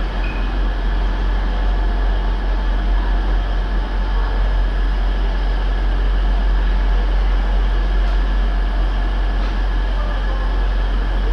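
British Rail Class 66 and Class 56 diesel locomotives running light engine as they pull away along the line, a loud, steady, low engine rumble.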